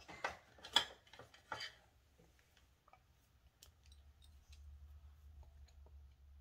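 Makeup items being handled: a few sharp clicks and taps in the first two seconds, the loudest about a second in, then faint scattered ticks over a low hum.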